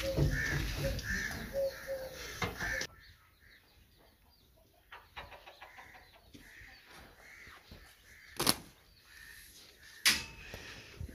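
Birds chirping in short repeated calls, loudest in the first few seconds, then quieter, with two sharp knocks in the second half.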